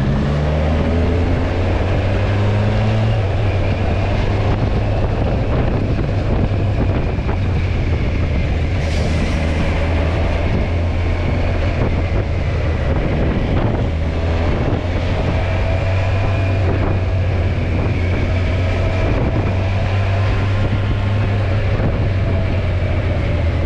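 Kawasaki Versys 1000's inline-four engine pulling the bike up to speed, its pitch rising over the first few seconds, then running steadily at cruising speed, with wind noise on the helmet-mounted microphone.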